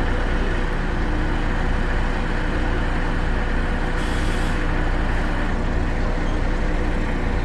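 A large vehicle's engine running steadily with a low hum, and a short hiss of air about four seconds in.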